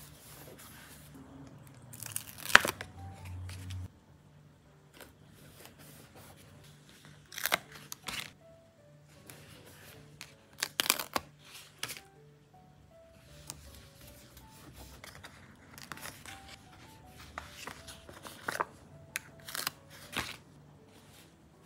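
Paper stickers and sticker sheets being peeled, cut and pressed down by hand: short, sharp crinkles, peels and snips at irregular moments, the loudest about two and a half seconds in, over soft background music.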